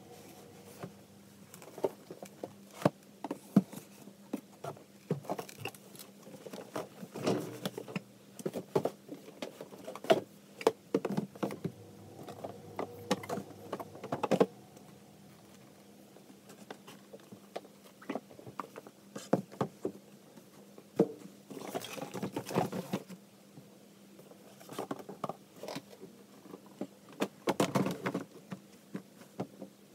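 Boxes being handled and pushed onto a shelf: scattered taps, knocks and scrapes, with longer scraping slides about two-thirds of the way through and again near the end. A faint steady low hum sits underneath.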